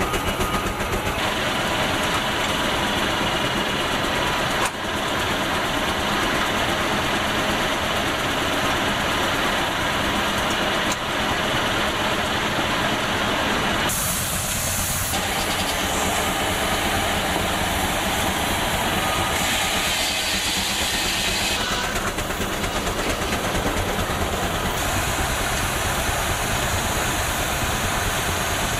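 Steam traction engine working under steam: a steady, loud hiss of steam over mechanical running noise. The sound shifts abruptly several times.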